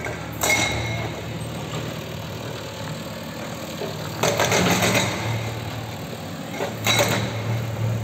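JCB backhoe loader's diesel engine running steadily, with three bursts of clattering as the machine works the brick rubble: about half a second in, a longer one around four to five seconds, and another about seven seconds in.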